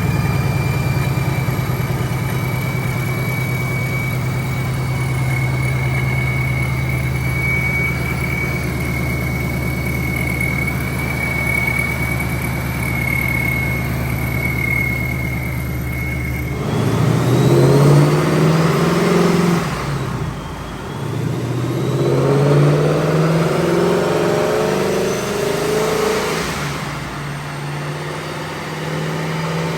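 Supercharged V8 of a 2019 Ford Mustang Bullitt, fitted with an ESS G3 supercharger kit, idling steadily with a thin high whine. After an abrupt change about halfway, the engine pulls hard: revs and the high whine climb, fall back, then climb and fall again.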